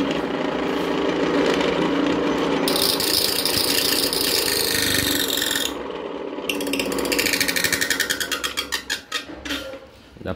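Small electric dry mill grinder running with its steel grinding plates scraping against each other as the plate gap is tightened, the metal-on-metal sound used to set the plates just touching, not too tight. The scraping turns bright and harsh for a few seconds in the middle, then the machine winds down, the scrape slowing into separate ticks before stopping near the end.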